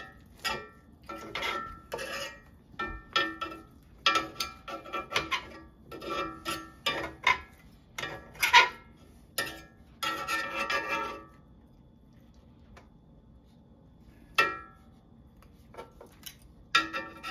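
Metal spatula and fork clinking and scraping against a cast-iron skillet as chicken legs are turned, each strike ringing briefly. The clatter stops a little after 11 seconds in, with one more sharp clink about two and a half seconds before the end.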